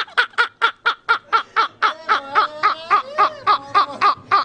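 Two men laughing hard, an unbroken run of about four "ha"s a second, with a second laugh overlapping in the middle.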